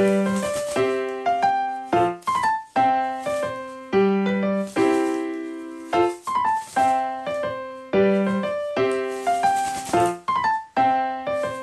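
Background piano music: a short melody of separate notes that strike and fade, repeating about every four seconds.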